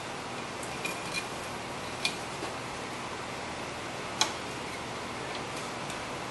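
A screwdriver levering a rusty front brake caliper on its slides gives a few scattered light metallic clicks, the sharpest about four seconds in, over a steady background hiss.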